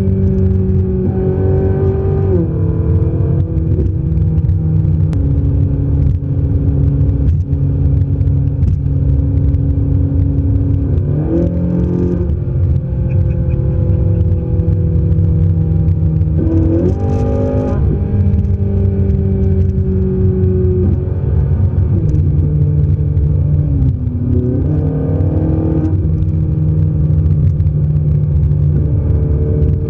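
Ferrari 458 Italia's naturally aspirated V8, heard from inside the cabin while driving on the highway: a steady engine note over road noise. It climbs sharply in short bursts of acceleration a little over ten seconds in and again around seventeen seconds, and the pitch drops several times as the gearbox shifts up.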